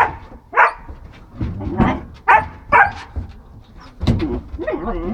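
German Shepherd barking in short, sharp barks, about five in the first three seconds, with softer pitched sounds following near the end.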